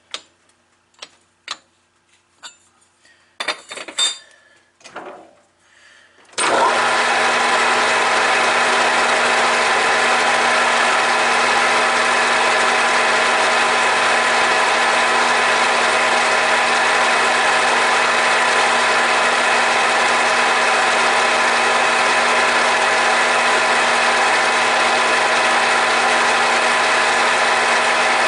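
A few clicks and knocks as the brass rod is set in the chuck by hand, then about six seconds in the Grizzly G4003G gearhead lathe starts suddenly and runs at steady speed with a constant whine. A cutter is fed into the turning brass rod.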